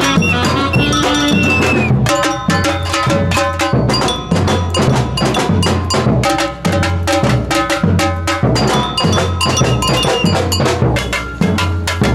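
Samba percussion band playing a fast groove: deep bass drums, snare drums and a cowbell-like bell. An alto saxophone plays a melody over the drums during the first couple of seconds.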